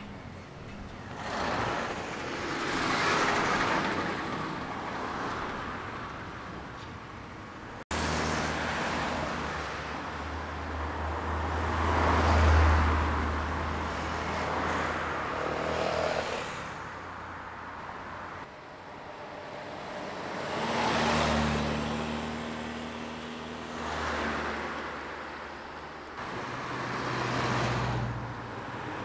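Classic cars driving past one after another, each engine note getting louder as the car approaches and fading as it goes away, over general road traffic noise.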